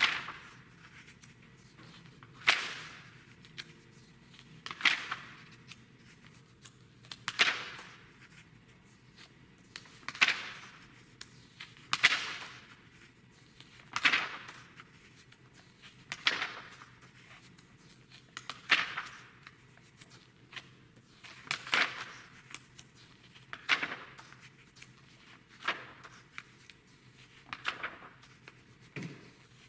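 Magazine pages being turned one after another by hand, each turn a quick, sharp paper swish or flap, about every two seconds.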